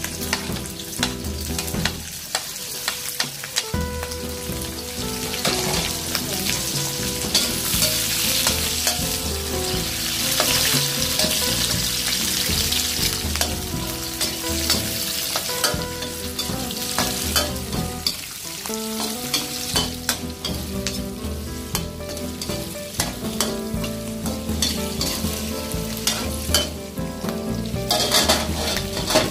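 Chopped onion and garlic sizzling in hot oil in an aluminium wok, stirred with a metal ladle that scrapes and clicks against the pan.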